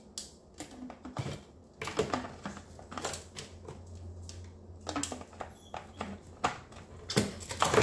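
Irregular light clicks and knocks of hard plastic chainsaw parts being handled: the Stihl MS 250's rear handle and small plastic pieces knocking together, with a faint low hum in the middle.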